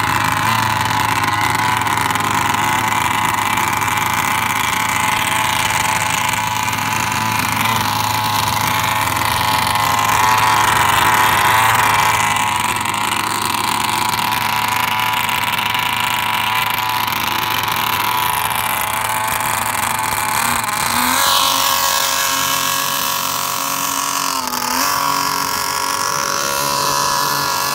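Two-stroke gasoline engine of a 60-inch Bonzi Sports Epic RC speedboat with Arrow Shark sterndrives, running at a steady speed. From about twenty seconds in the pitch rises and falls a couple of times as the throttle is worked and the boat pulls away across the water.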